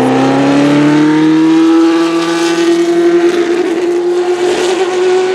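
Cosworth DFV V8 of an Arrows A4 Formula One car under acceleration, its engine note climbing slowly and steadily in a single gear.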